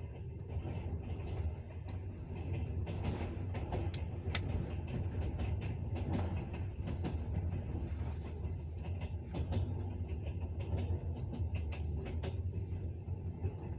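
Train wheels clattering on the rails over a steady low rumble, with scattered sharp clicks.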